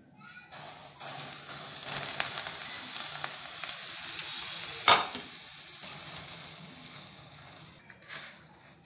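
Hot oil poured onto a bowl of flour and sliced onions, sizzling with a steady hiss that starts about half a second in and fades away over several seconds. A single sharp knock about five seconds in.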